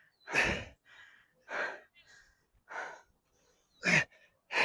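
A man breathing hard in heavy gasps, one breath after another, winded after exercising to failure.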